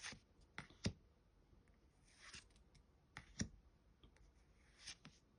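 Faint handling of Pokémon trading cards, flicked and slid past one another by hand: several sharp card clicks in pairs, with a soft scrape about two seconds in.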